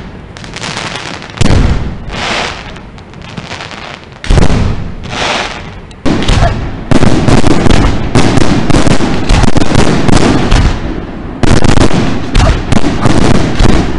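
Aerial fireworks shells bursting overhead: two single loud booms with a crackle between them, then from about six seconds in a rapid, unbroken barrage of bangs.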